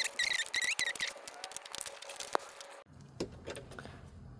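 Small wrench clicking and tapping on a corroded negative battery terminal as it is worked loose, with a few high squeaks in the first second.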